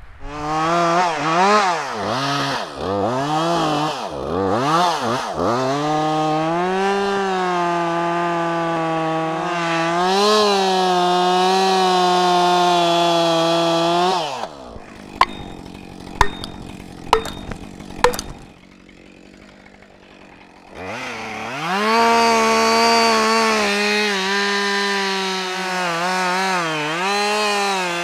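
Gas chainsaw revved in quick blips, then held at full throttle cutting into a standing tree trunk. About halfway through it drops off, four sharp clicks follow, then a short lull. The saw revs back up and cuts again to the end.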